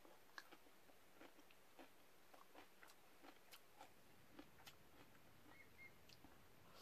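Faint eating sounds from a person eating brown-rice cup noodles with chopsticks: soft, irregular clicks and smacks of chewing and mouthfuls.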